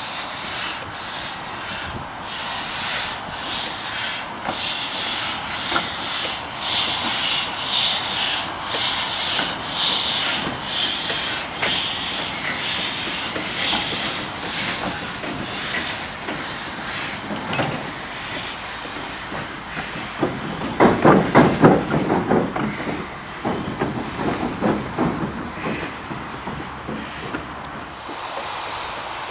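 Small industrial tank steam locomotives moving slowly in light steam: steady steam hiss with regular exhaust beats. About twenty seconds in comes a louder run of quick low beats that fades off over the next few seconds.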